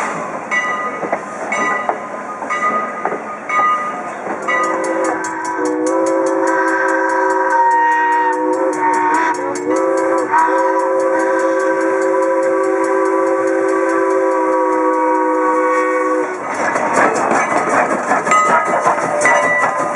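Steam locomotive of the Strasburg Rail Road running with its train, regular clicking at first. About five seconds in, its multi-tone steam whistle starts one long blast, held about eleven seconds and wavering briefly in the middle. After the whistle cuts off, loud rumbling and clatter of the moving train.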